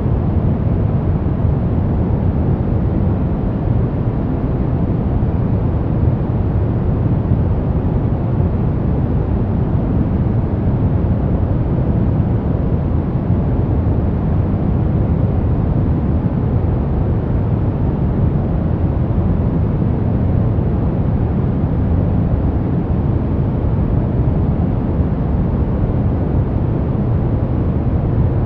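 Continuous white-noise track for sleep and relaxation: an unchanging, deep, rumbling noise with most of its weight low down and little hiss on top.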